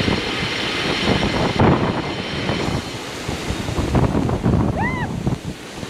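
Wind buffeting the microphone while riding a motorcycle, a gusting rush with vehicle noise underneath. A short rising-and-falling chirp comes near the end.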